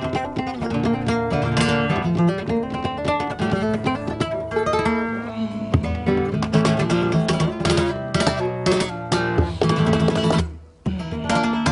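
Acoustic guitar played solo, a quick stream of plucked notes and chords. It breaks off for a moment near the end, then starts again.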